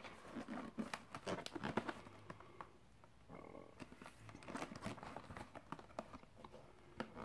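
Fingers gripping and turning a cardboard ready-meal box: faint rustling, scraping and tapping on the cardboard in two flurries, with one sharp tick near the end.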